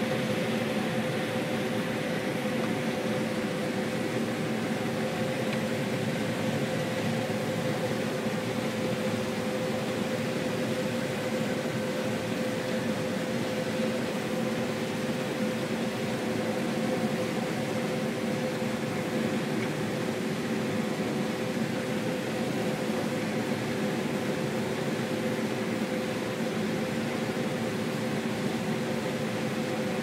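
Combine harvester running steadily while harvesting corn, heard from inside the cab: an even mechanical drone with a steady hum through it.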